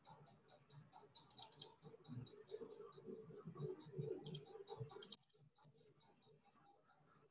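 Near silence with faint, even ticking at about four a second. Soft irregular clicks stop suddenly about five seconds in.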